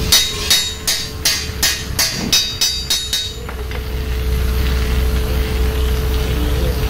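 A quick run of about ten ringing metallic hammer taps, roughly three a second, that stop after about three seconds. A steady hum and running water carry on underneath.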